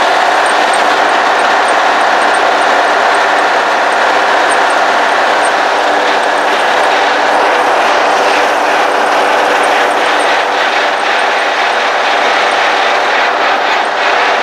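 Case 1030 tractor's six-cylinder diesel engine running steadily at road speed while pulling a manure spreader, heard from inside the cab.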